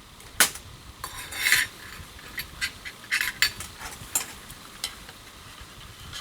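Metal utensils clinking and scraping against cookware: a scatter of sharp clicks and one brief scrape about a second in.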